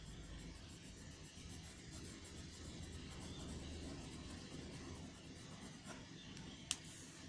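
Faint scratching of a pencil shading on paper over a low steady hum, with one sharp click near the end.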